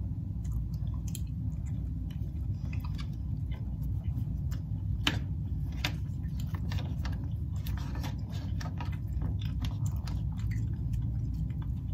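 Close-up chewing and mouth sounds of a person eating saucy smoked sausage, with frequent short wet clicks, over a steady low hum.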